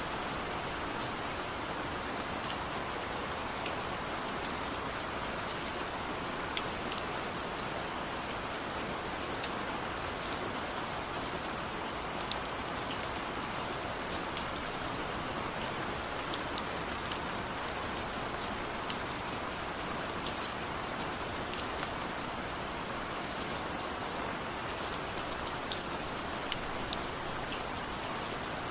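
Steady rainfall, an even hiss with many individual drops ticking sharply at irregular moments.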